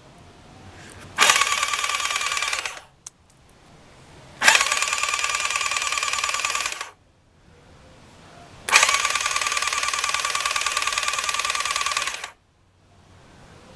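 Yamaha Thunderace's freshly rebuilt inline-four engine cranked over on its electric starter with the spark plugs out, three runs of a few seconds each with pauses between, to pump oil round the engine. A banging can be heard in it that the owner cannot place.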